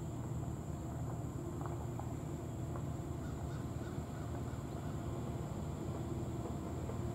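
Low, steady rumble of a ten-unit lashup of diesel-electric freight locomotives working toward the crossing, led by a GE D9-40CW, with a thin steady high insect buzz and a few faint short bird calls over it.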